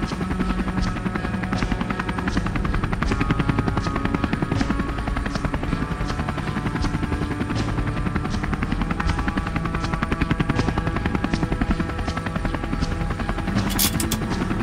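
Helicopter rotor chopping steadily over sustained background music, with a short sharp rattle near the end.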